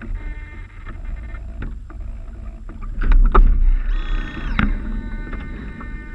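Water splashing and sloshing along the hulls of a radio-controlled Mini40 model trimaran under sail, with a steady low rumble throughout. A few sharp knocks come around three seconds in, then a brief high whine about four seconds in.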